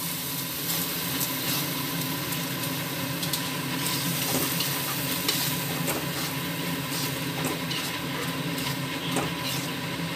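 Masala paste sizzling in oil and butter in a steel kadai as a steel spoon stirs it, with scattered scrapes and clicks of the spoon against the pan.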